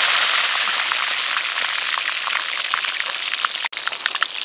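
Whole chicken deep-frying in hot oil in a wok: a loud sizzle as it goes in, easing into a steady crackling and popping of the bubbling oil.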